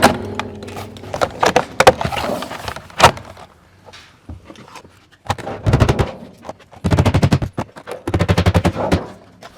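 Vinyl siding being worked by hand: scattered sharp knocks and clicks, then three short bursts of very rapid clattering, each lasting under a second.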